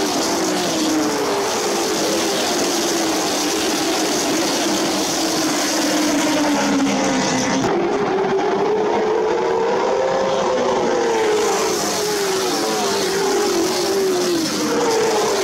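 A pack of late model stock cars' V8 engines racing past at full throttle, their pitch sliding down as cars go by and rising again as they accelerate, several engines overlapping. The sound changes abruptly about halfway through.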